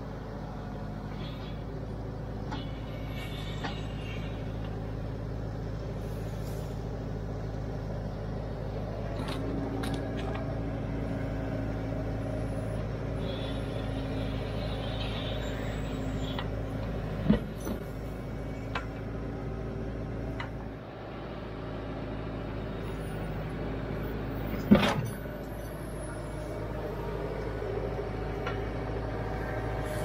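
Branson tractor's diesel engine running steadily while its backhoe digs. Two sharp knocks from the backhoe bucket at work come in the second half, the second the louder.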